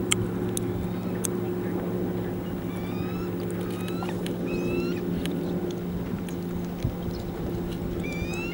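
Eagles giving a series of short, high, rising chirping calls, several in quick succession midway and one more near the end, over the steady hum of an idling outboard motor; a few sharp clicks near the start.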